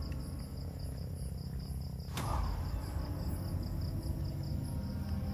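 Crickets chirping in an even pulsed trill, about five chirps a second, over a low rumble, with one sharp click a little over two seconds in.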